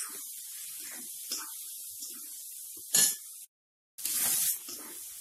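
Green peas frying in hot oil in a steel kadai, with a steady sizzle and a metal spatula clinking and scraping against the pan as they are stirred. There is one loud clank about three seconds in, then the sound cuts out briefly before a louder scrape.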